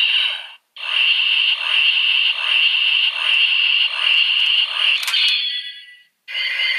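Electronic transformation-device (henshin morpher) sound effect: a high buzzing tone pulsing about twice a second, ending in a sharp click and fading out. After a short gap, a new electronic sound with rising sweeps starts near the end.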